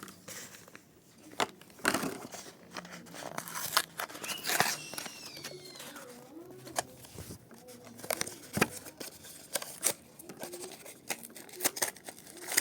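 Plastic and cardboard blister packaging of a Matchbox diecast car being forced open by hand: irregular crinkling, tearing and sharp plastic cracks.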